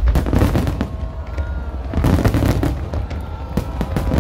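Fireworks display: many aerial shells bursting in a dense barrage, rapid overlapping bangs over a continuous low rumble.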